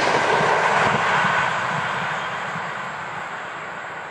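Finnish Intercity passenger train rolling away down the track, the noise of its wheels on the rails fading steadily from about a second and a half in as it recedes.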